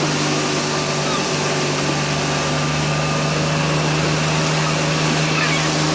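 A small fishing boat's engine running at a steady speed, a constant hum, over a broad hiss of wind and water.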